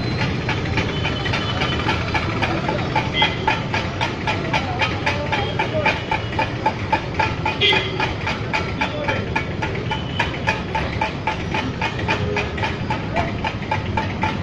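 An engine running steadily with a rapid, even ticking beat, over a continuous hiss of street noise.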